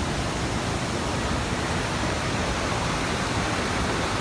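Waterfall's falling water rushing in a steady, even hiss.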